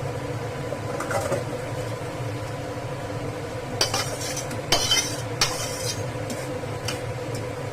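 Stirring in a cooking pan: a spoon or spatula scraping and clinking against the metal a few times, most of it in the second half, over a steady low hum.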